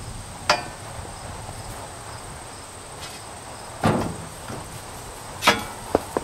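Clanks and knocks from a steel hand truck carrying a granite monument piece as it is tipped back and rolled: three sharp clanks, about half a second, four and five and a half seconds in, then a few lighter clicks near the end.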